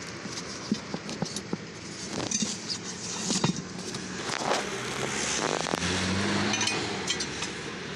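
Scattered knocks and metallic clinks as a steel wheel rim and tyre are handled and worked apart by hand. A low engine-like hum swells and fades in the second half.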